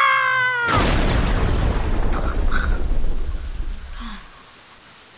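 A short high-pitched cry that falls in pitch, then a sudden loud boom with a deep rumble that dies away over about three seconds, like a thunderclap or blast sound effect.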